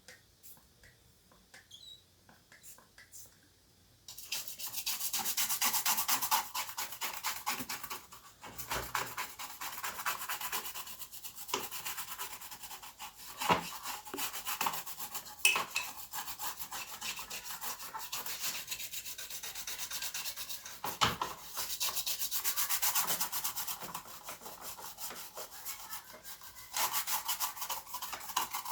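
Scrubbing of an electronic keyboard's circuit board with isopropyl alcohol to clean off oxidation and corroded tracks. After a few faint clicks, a rapid scratchy rubbing starts about four seconds in and keeps going.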